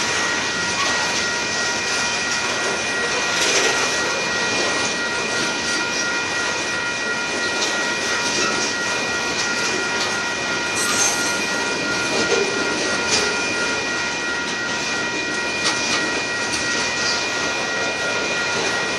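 Freight cars of a Union Pacific manifest train rolling past: a steady rumble and rattle of wheels on the rails with scattered clacks, and a steady high whine.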